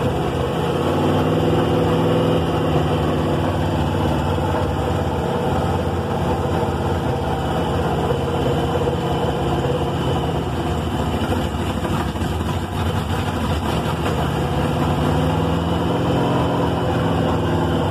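Rover 3.5-litre V8 with a four-barrel carburettor running on its first start, mostly at a steady idle. The revs rise briefly about a second in and again near the end, then settle back.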